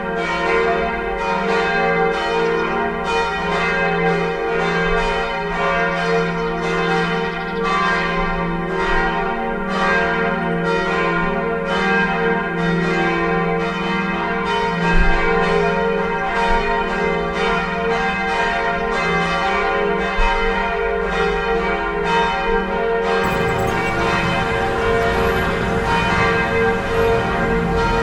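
Church bells ringing in quick succession, each strike ringing on into the next. A low rumbling noise joins in for the last few seconds.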